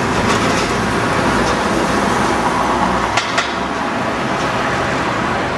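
Road traffic with a vehicle engine running close by; its low rumble drops away about three seconds in, where two sharp clicks are heard.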